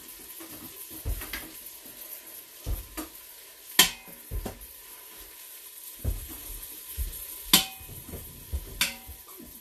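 Metal tongs clinking and scraping against the metal inner pot of an electric quick cooker as chicken tenders are laid in. It comes as a series of sharp clinks with soft thuds between them, the loudest clinks about 4 s in and again about 7.5 s in.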